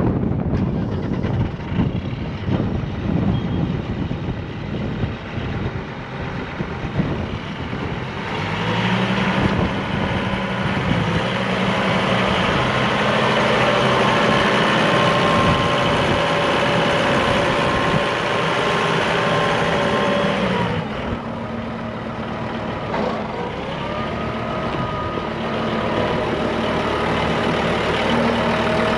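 John Deere 5075M tractor's diesel engine running as the tractor is driven. The engine speeds up about a third of the way in, holds steady, drops back about two-thirds through, then picks up again.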